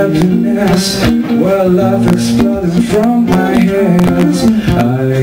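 A man singing into a microphone over an acoustic guitar: a live acoustic version of a funky rock song.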